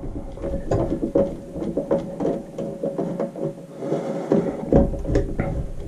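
A run of irregular small clicks, knocks and rattles as the motor plate of a Broan bath exhaust fan is worked loose by hand from its ceiling housing.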